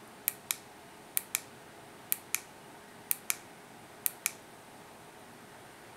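Buttons on a small wireless remote control being pressed and released over and over, about once a second, each press a sharp double click. There are five presses, then they stop.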